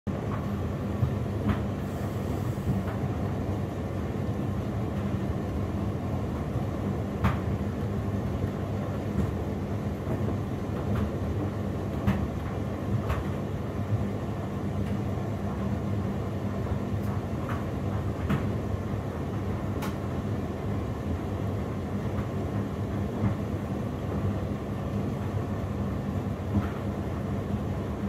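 Hotpoint WMD960 Ultima washing machine in the wash phase of a Cottons 60° cycle: the motor turns the drum with a steady low hum while the small load tumbles in sudsy water. Sharp clicks from the tumbling load now and then.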